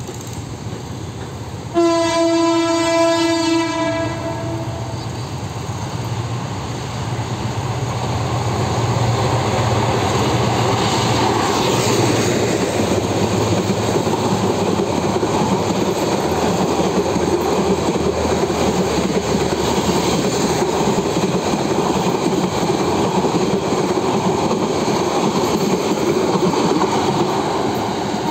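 Express train's diesel locomotive sounding one horn blast of two to three seconds, about two seconds in, as it runs through the station without stopping. Its engine rumble passes, then the coaches' wheels clatter steadily on the rails.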